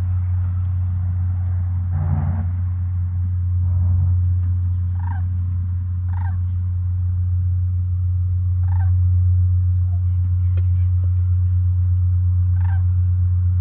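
A turkey gobbling four times in short bursts over a loud, steady low hum.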